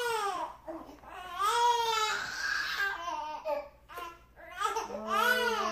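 Infant crying: a run of long, high-pitched wails, each rising and then falling in pitch, with short pauses between.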